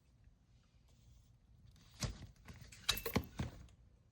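A cluster of sharp clicks and knocks starting about two seconds in, with a brief faint high tone among them, like small hardware being handled.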